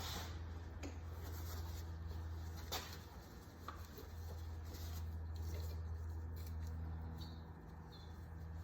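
Light clicks and rubbing as the new oil filter is handled and fitted by hand under the car, over a steady low hum.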